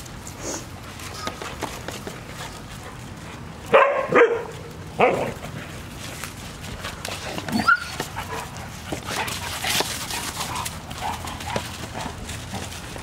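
Dogs barking and yelping during rough play: a few loud barks about a third of the way in, then a short high yelp a little past the middle, with softer scattered calls after. The yelp is the kind that can set off prey drive in already excited dogs.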